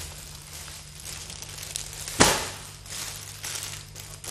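Plastic-wrapped packs of foil balloons rustling and crinkling as they are handled, with one sudden, loud crackle about two seconds in.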